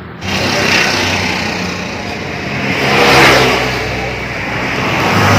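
Road traffic passing close by, a steady noise of engines and tyres that swells as vehicles go past, loudest about three seconds in and again near the end.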